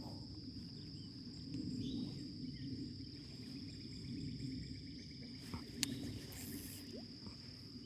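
Insects trilling in one steady high unbroken tone, over a low rumble of wind or handling noise, with one sharp click about six seconds in.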